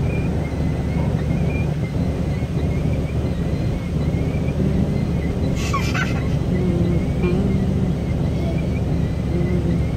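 Steady low rumble of a vehicle driving slowly through floodwater covering the road: engine running, with water washing against the tyres and body.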